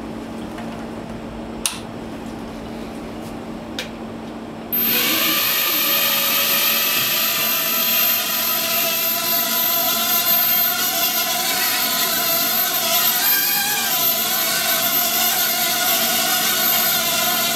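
Battery-less mini quadcopter's motors and propellers starting suddenly about five seconds in and then whirring steadily with a high whine as it hovers on wireless power; the pitch wavers briefly later on. Before it starts there is only a low steady hum and two faint clicks.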